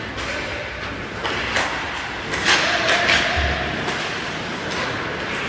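Ice hockey play on the rink: a few sharp knocks of sticks, puck and boards, and a scraping hiss of skates on the ice, over a background of arena noise. The loudest knocks come about halfway through.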